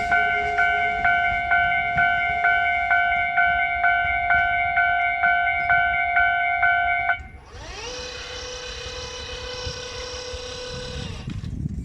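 Japanese railway level-crossing warning bell ringing in a rapid steady rhythm, about two strikes a second, which stops suddenly about seven seconds in. A quieter whine then rises in pitch, holds steady with a hiss for a few seconds and stops.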